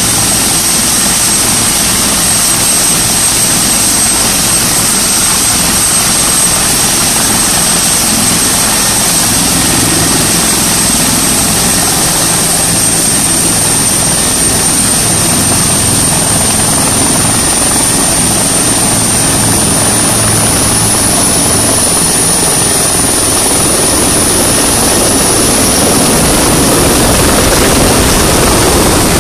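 Turbine air ambulance helicopter running with its rotors turning. A high turbine whine steps up in pitch as power comes up, then the helicopter lifts off. The rotor noise grows louder near the end as it climbs overhead.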